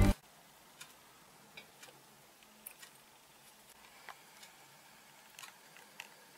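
Faint, scattered light metallic clicks and taps, a handful spread over a few seconds, as a homemade steel puller plate and its bolts are handled and fitted onto a scooter engine crankcase for splitting it.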